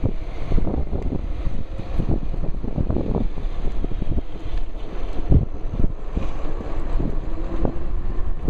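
Wind buffeting the microphone of a shirt-pocket camera on a moving electric bike, a rough, gusty rumble.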